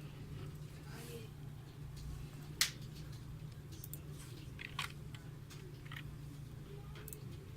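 A low steady hum with a few light clicks, the sharpest about two and a half seconds in and another near five seconds.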